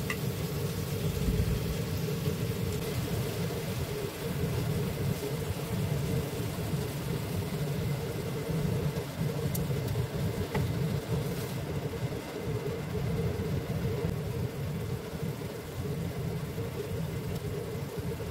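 Steady low machine hum that runs on evenly, with no clear change.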